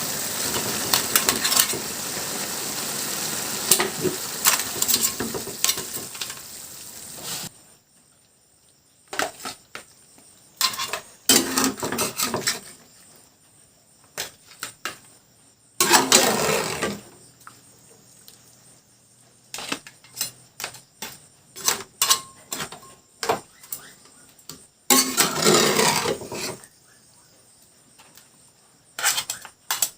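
Crab and bamboo shoots sizzling in the pan for about seven seconds, then cutting off suddenly. After that come scattered clinks and knocks of dishes and cutlery.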